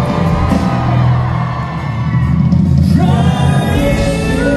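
Live pop concert heard from the audience: band music over the hall's sound system, with heavy bass and singing. A new sustained note comes in about three seconds in.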